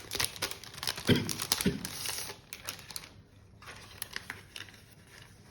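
Cardboard box and packaging being opened and handled: crinkling and rustling with dense small clicks over the first half, two brief squeaks about a second in, then quieter scattered taps.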